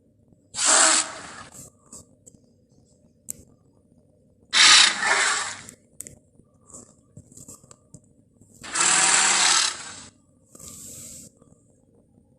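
Made-up Pachyrhinosaurus calls: three harsh, rasping roar-like blasts, each about a second long and a few seconds apart, with a short fainter hiss near the end.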